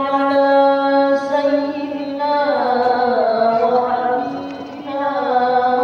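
A voice chanting a melodic Islamic chant in long held notes. The pitch slides and shifts a little past halfway, then settles into held notes again near the end.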